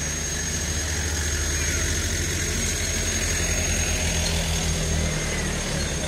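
An engine running steadily at a low, even hum, like a motor idling.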